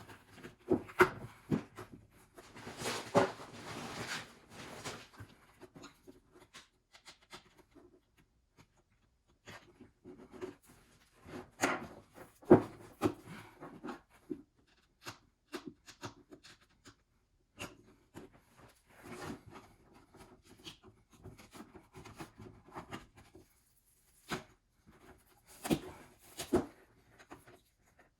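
Irregular knocks, clicks and scraping of hand work on a Gold Cube sluice tray as its glued and stapled mat is worked loose, with a longer scraping, rustling stretch about three seconds in.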